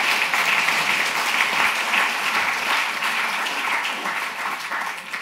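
Audience applauding: dense clapping from many hands, tailing off slightly near the end.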